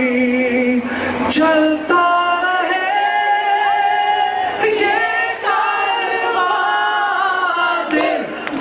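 A man singing a Pakistani patriotic song live into a microphone, with a crowd singing along. The notes are drawn out and held for several seconds at a time.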